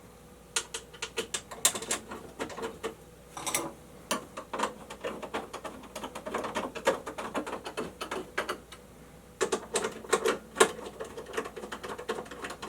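Irregular run of sharp clicks, taps and rattles from hands handling and fitting metal parts on an electrical breaker subpanel, with a brief pause about nine seconds in.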